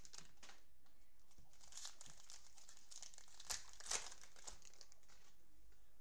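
Clear plastic cello wrapper of a trading-card pack being torn open and crinkled by gloved hands, in a series of crackling bursts, the two loudest a little past halfway.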